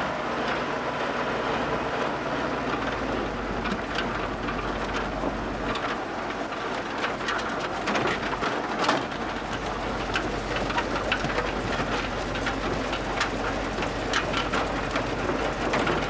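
1948 Willys Jeep driving on a gravel trail: its four-cylinder engine runs with a low, steady drone under a constant hiss of tyres on gravel and frequent sharp rattles and clicks.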